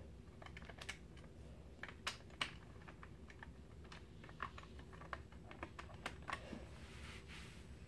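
Plastic Lego bricks clicking and clattering as they are handled, pulled apart and pressed together: faint, irregular clicks, with a couple of sharper ones about two seconds in.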